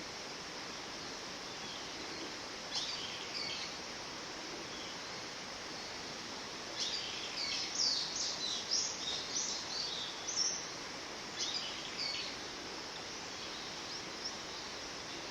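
Japanese paradise flycatcher singing: a short phrase about three seconds in, a longer run of quick repeated notes from about seven to ten seconds, and another short phrase near twelve seconds, over a steady background hiss.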